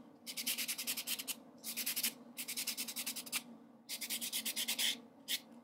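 Nail buffer block rubbed back and forth over fingernails in quick rasping strokes, in several short runs with brief pauses between. This is the nail surface being buffed before gel is applied.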